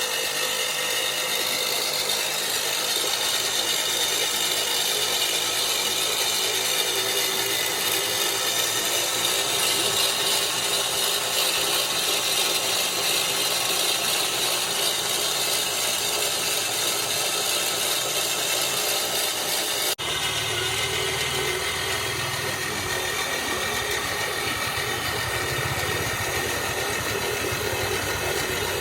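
Small battery-driven electric motor running steadily, turning a homemade mini concrete mixer, with a mechanical rattle. About two-thirds through the sound breaks off abruptly and resumes with a lower rumble added.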